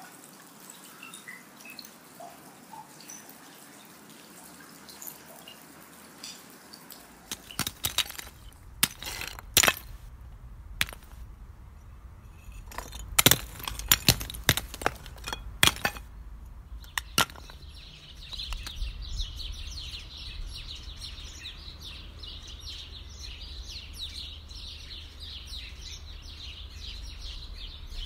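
Outdoor ambience: faint bird chirps, then a low wind rumble comes in about seven seconds in, with a scatter of sharp knocks and clicks over the next ten seconds. From about seventeen seconds a dense, fast, high-pitched chirring runs steadily over the rumble.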